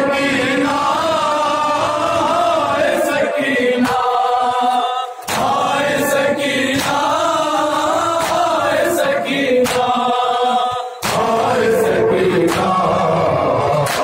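Men chanting a noha, an Urdu Shia lament, in long drawn-out phrases with brief pauses between lines. Chest-beating (matam) strikes sound roughly once a second under the chant.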